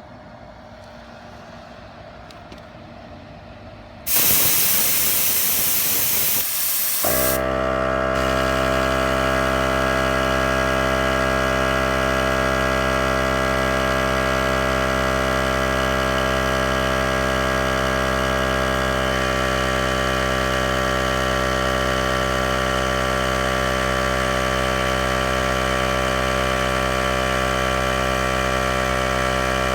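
Paoc MD-0308 oilless mini air compressor: compressed air hisses out loudly for about three seconds, then the motor and pump start about seven seconds in, spinning up quickly and running with a steady hum.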